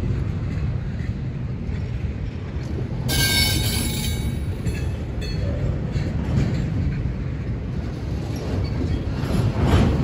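Double-stack intermodal freight cars rolling past with a steady low rumble of wheels on rail. About three seconds in, a brief high-pitched wheel squeal cuts in for about a second.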